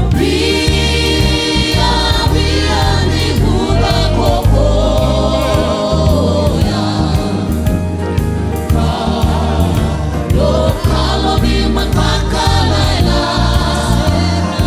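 Live gospel worship song: a group of women singing together in harmony, backed by keyboard and a drum kit with cymbals keeping a steady beat over a bass line.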